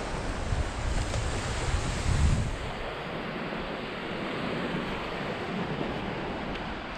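Surf washing on a beach with wind buffeting the microphone; the gusts are strongest for the first two seconds or so, then ease, leaving a steadier wash of waves.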